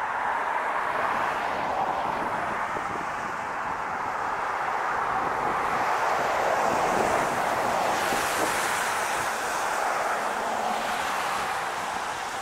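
Steady outdoor rushing noise with no clear events, swelling around the middle and easing off near the end.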